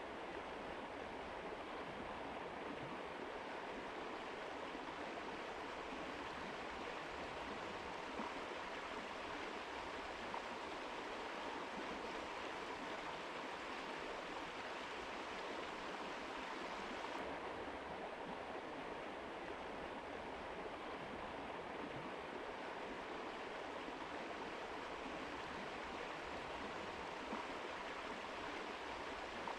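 Mountain river rushing over rocks: a steady, even water noise. Its highest hiss thins a little over halfway through.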